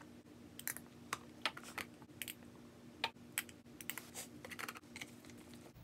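Quiet, irregular small clicks and taps of hard plastic as a plastic food-storage container lid is pried open and handled with a plastic dropper in hand. A faint steady hum runs beneath.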